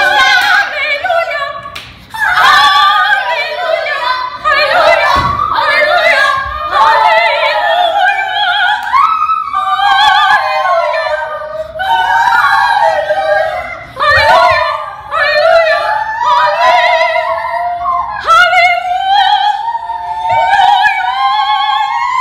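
Young girls singing together in an operatic style, high voices with a wide vibrato, in long phrases broken by short pauses about two seconds in and again around fourteen seconds.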